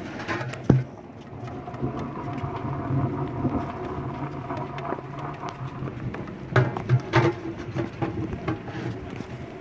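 Sheet-metal knocks and clanks from a pellet burner's hopper being handled and opened: one sharp knock just under a second in, and a few more about two-thirds of the way through. Under them run a steady low mechanical hum and light rain.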